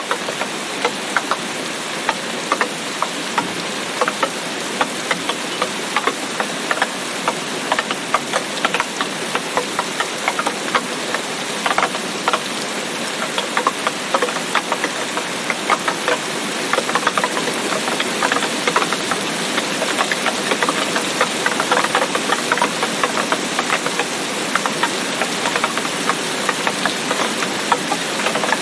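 Steady rain falling in a tropical rainforest: a continuous hiss packed with many sharp, close drop taps. It grows slightly louder about halfway through.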